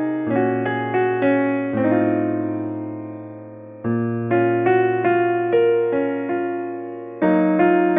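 Background keyboard music: a gentle melody of struck notes that fade over low held chords. The notes die away for a moment near the middle before a new phrase begins.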